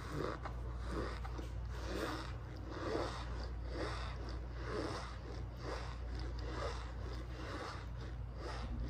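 Mouthful of cornstarch chunks being chewed in a steady rhythm, each chew a squeaky, lightly crunchy rasp.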